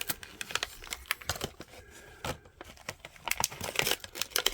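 Packaging of a boxed diecast model car being handled and opened: irregular crinkling and sharp clicks, busier near the end.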